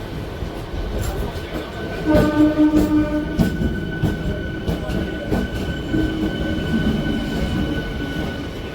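Passenger train running on the rails, with a steady rumble and occasional sharp clicks. About two seconds in a steady high wheel squeal sets in and holds until near the end.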